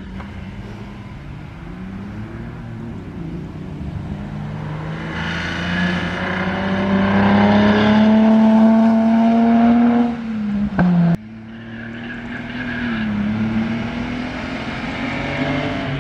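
Vintage racing car engine at full throttle, growing louder as it comes closer, its pitch edging up. About eleven seconds in the sound breaks off suddenly, and another racing engine rises in its place.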